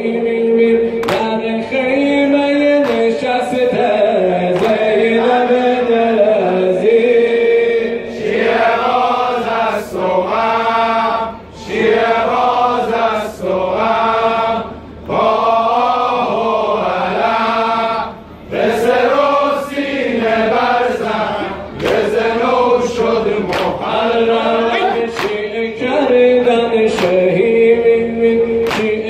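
A group of men chanting a Muharram lament in unison, with brief pauses between phrases. Regular sharp slaps of ritual chest-beating (sineh zani) keep time with the chant.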